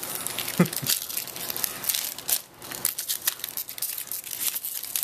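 Trading-card pack wrappers being torn open and crinkled by hand, with many short sharp crackles.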